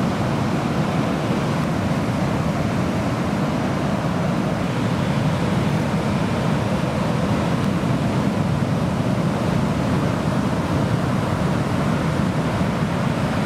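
Ocean surf breaking on a beach: a steady, even rush of waves with a strong low rumble.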